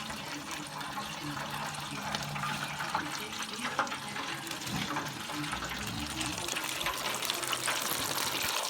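Battered chicken deep-frying in oil: a steady sizzle with scattered small crackles and pops.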